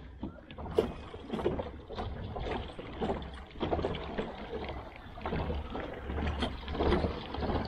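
Water splashing and sloshing around a kayak in a regular rhythm, roughly two strokes a second, with wind rumbling on the microphone.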